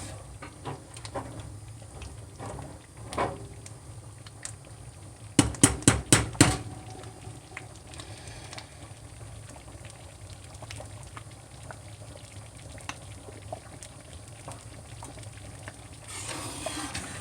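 Pot of pigeon peas soup simmering, with a utensil stirring and clinking in the pot. A quick run of about six loud knocks against the pot comes about five and a half seconds in.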